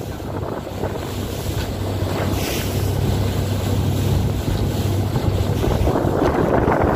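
Motorboat underway: a steady low engine hum with water rushing past the hull and wind buffeting the microphone.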